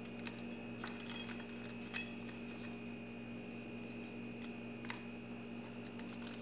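Scattered faint crackles and clicks as crisp, dry-roasted dried red chillies are broken apart by plastic-gloved fingers, over a steady faint hum.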